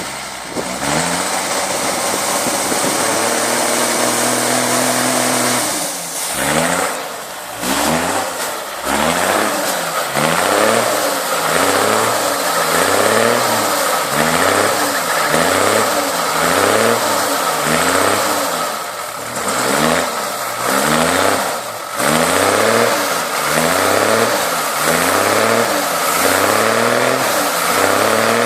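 Off-road vehicle engine revving, held fairly steady at first, then revved up and down over and over, about once a second, from around seven seconds in.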